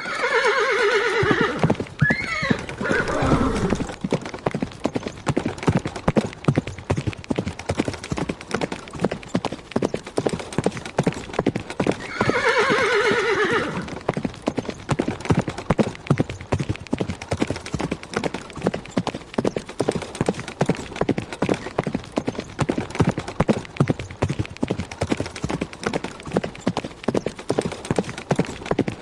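Horse galloping: a fast, continuous run of hoofbeats throughout. It whinnies loudly at the start with a brief squeal just after, again about twelve seconds in, and once more at the very end.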